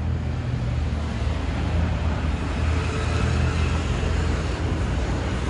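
Road traffic: a steady low rumble with a passing vehicle swelling a little around the middle.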